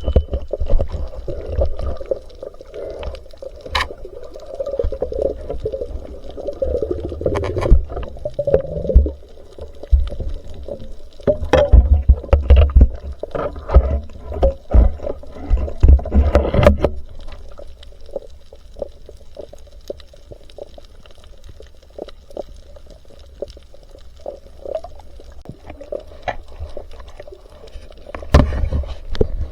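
Water gurgling and sloshing, heard underwater or at the surface, with scattered sharp clicks and knocks. The burbling is busiest for the first half, eases off, then picks up again just before the end.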